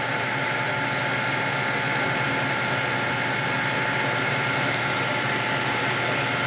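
Nardini engine lathe running steadily: an even machine hum with several constant high whining tones from its motor and gearing.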